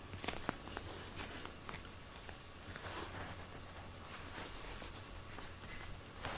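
Fingers picking and peeling shed cat hair off a rubber-nubbed mesh grooming glove: faint, irregular rustling with soft scattered clicks.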